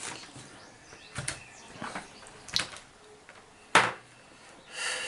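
Small objects being handled and set down on a workbench: a few separate light clicks and knocks about a second apart, one sharper knock a little under four seconds in, and a brief scrape near the end.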